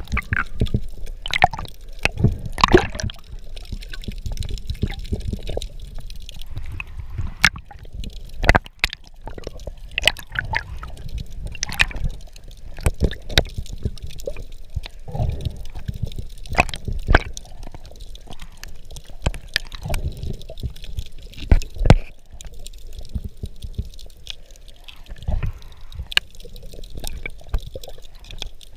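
Underwater water movement heard through a diving camera, a low rushing broken by irregular sharp clicks and knocks, with louder knocks about eight seconds in and again about twenty-two seconds in.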